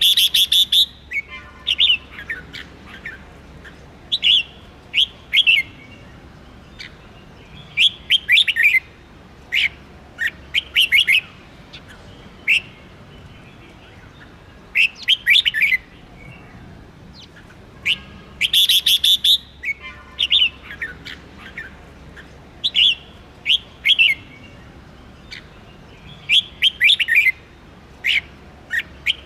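Red-whiskered bulbul singing: a dozen or so short, bright whistled phrases of quick up-and-down notes, each about a second long, with brief pauses between them.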